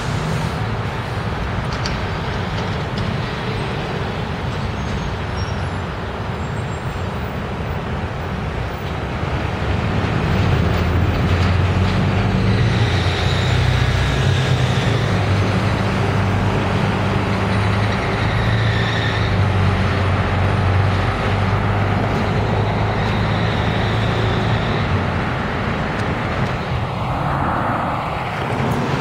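New York City Transit bus pulling away across the intersection, its engine drone growing louder about ten seconds in and easing off after about 25 seconds, over steady street traffic.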